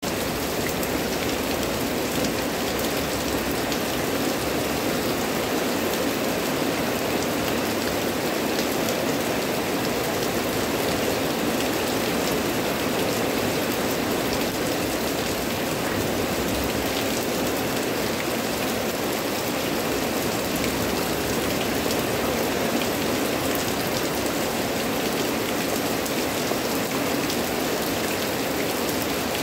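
Heavy rain pouring steadily onto thick leafy vegetation: an even, dense hiss peppered with the patter of countless drops, with no let-up.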